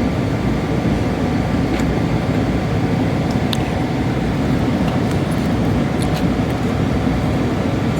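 Airliner cabin drone in flight: the steady, low rush of engines and airflow filling the cabin, with a few faint clicks on top.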